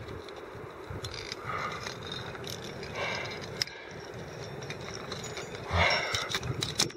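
Metal climbing gear clicking and scraping against granite as a camming device is set in a horizontal crack and clipped, loudest about six seconds in, with wind buffeting the microphone.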